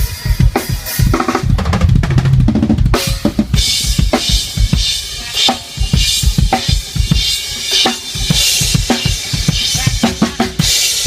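Acoustic drum kit being played in a sound check: a run of rapid low drum hits on kick and toms, then from about three seconds in a beat of kick, snare and ringing cymbals.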